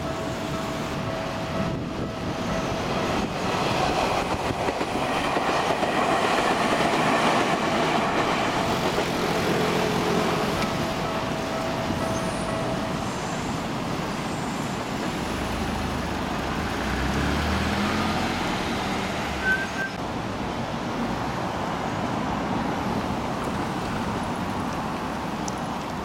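Japanese level-crossing alarm ringing with steady pitched tones while a Tokyu Tamagawa Line train passes, the rumble of its wheels on the rails swelling for several seconds. The alarm stops about halfway through, leaving street noise.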